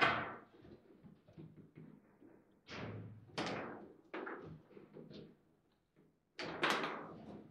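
Foosball table in play: hard plastic knocks and clacks as the players' rods and figures strike the ball and the table. The hits come irregularly about once a second, with a loud one at the start and a quick burst of them near the end.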